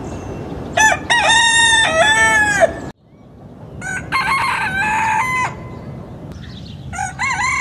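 Roosters crowing: one long crow about a second in, a second about four seconds in, and a third starting near the end, each with a rising start, a held middle and a falling end. A steady low rumble of background noise lies underneath.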